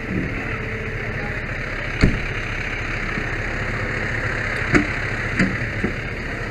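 Fire engine's engine idling steadily. A sharp knock comes about two seconds in and three more come near the end.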